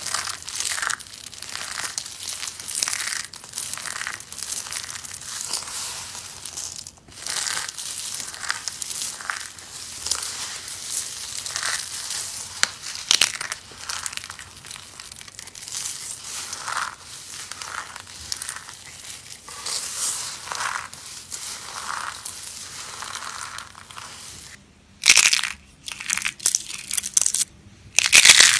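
Soap being crushed: a continuous crumbling crackle of many small, sharp crunches. It pauses briefly about seven seconds in and twice near the end, with loud single crunches between and after those pauses.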